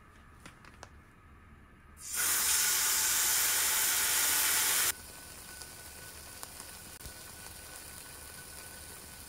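Chicken breast marinated in soy-sauce koji sizzles loudly in hot oil in a frying pan once it is laid in, about two seconds in, after a few light clicks. About three seconds later it drops suddenly to a quieter, steady sizzle as the chicken browns.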